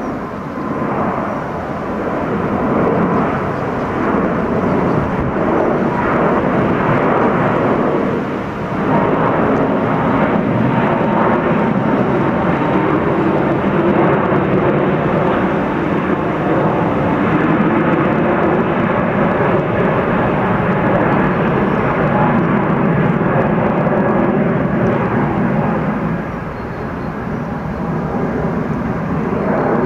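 Emirates Airbus A380's four turbofan engines at takeoff climb thrust as it passes overhead: loud, steady jet noise with a faint steady whine in the first half, dipping briefly and easing a little near the end as the aircraft moves away.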